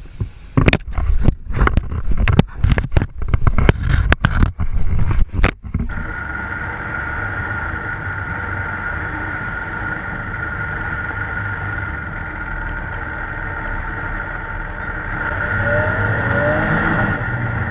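About six seconds of sharp knocks and clattering, then a steady engine-like drone with a low rumble and a constant high whine, swelling slightly near the end.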